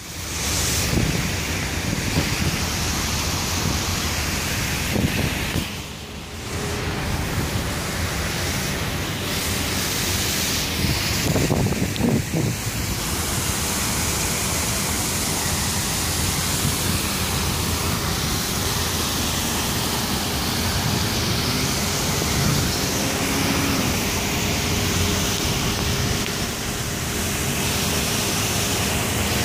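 Steady rushing noise of fountain water splashing, mixed with wind buffeting the microphone. It dips briefly about six seconds in.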